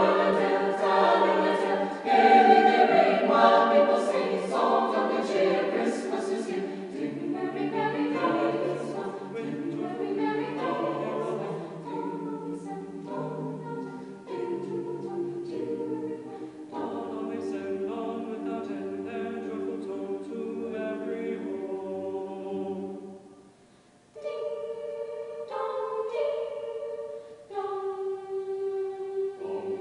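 High school choir singing in harmony, with many voices on moving chords. The singing breaks off briefly about three quarters of the way through, then returns in long held chords.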